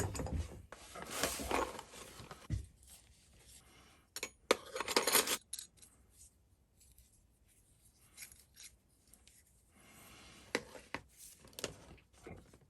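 Intermittent handling of small metal tools: scraping, rubbing and sharp clicks of a needle file and its machined metal handle, in separate short bouts with quiet gaps between, a few light clicks near the end.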